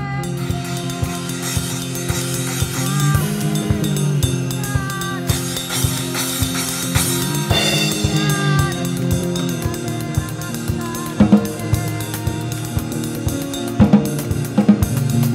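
Live band music: a drum kit keeps a steady beat over sustained chords, with a few louder drum hits near the end.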